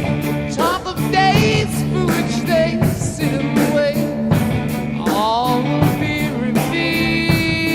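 Rock song with a steady drum beat, guitar and a singing voice.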